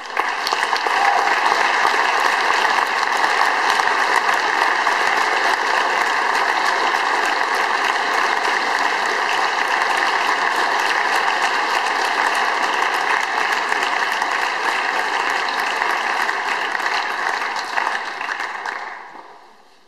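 Audience applauding: a long, steady round of clapping that starts suddenly and fades out near the end.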